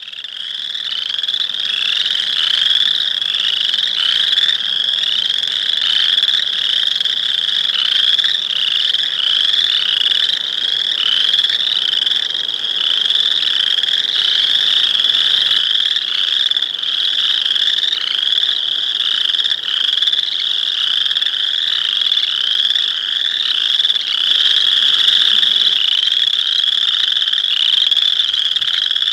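A chorus of boreal chorus frogs (Pseudacris maculata), many calling at once. Their short rising trills repeat and overlap into a steady chorus, fading in at the start.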